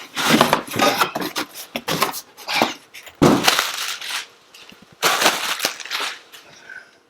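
Cardboard box and packing being torn open and handled: irregular bursts of rustling and tearing, several of them loud.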